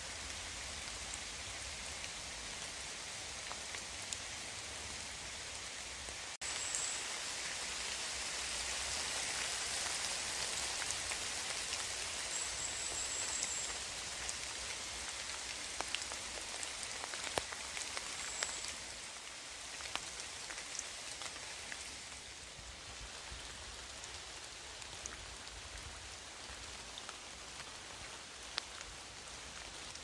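Steady rain falling, with scattered louder drops. It steps up a little louder about six seconds in. A few faint, short, high-pitched trills sound over it.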